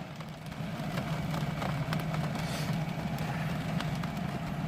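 The van's air conditioner running with a steady low hum.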